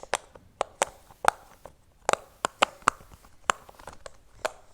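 Silicone bubbles of a giant pop-it fidget toy being pressed one after another, giving a string of sharp pops at uneven spacing, about three or four a second.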